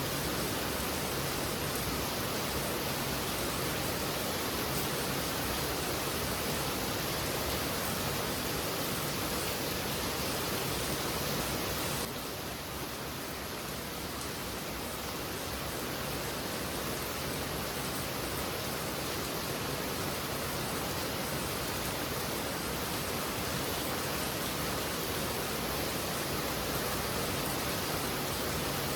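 Heavy rain falling steadily as a dense, even hiss, easing slightly about twelve seconds in before building back up.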